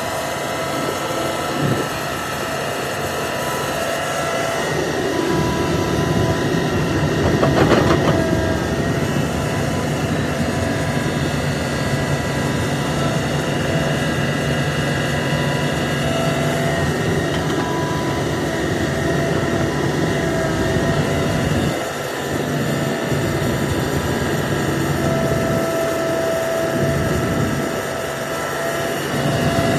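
Hitachi ZAXIS 350H excavator working: its diesel engine runs continuously under load, with a low rumble and several steady high tones over it. The sound swells about six to eight seconds in and dips briefly a little past two-thirds of the way through.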